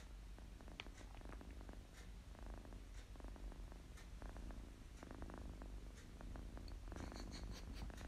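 Ginger-and-white kitten purring close to the microphone: a low, rapid rumble that swells and fades with its breathing.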